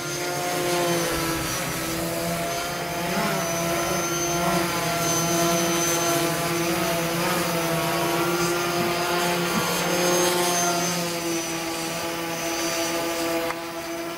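Electric motor and propeller of a battery-powered RC foam model plane whining steadily in flight, its pitch wavering slightly now and then.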